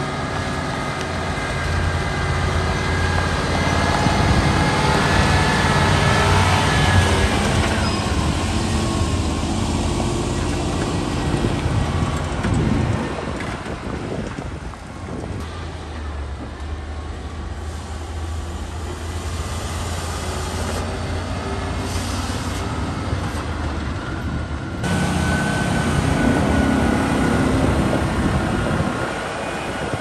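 Heavy diesel engines running: a MAN heavy-haul truck pulling a lowbed loaded with a Komatsu D475A crawler bulldozer, and the bulldozer itself. A steady low engine hum with a high whine over it, changing abruptly a few times as the shots change.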